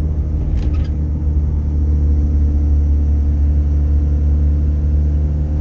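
Mazda RX-7 rotary engine, breathing through a Weber 48 IDA carburettor with short 3D-printed velocity stacks, running steadily at a light cruise, heard from inside the car as a constant low drone. It grows slightly louder about a second and a half in, then holds steady.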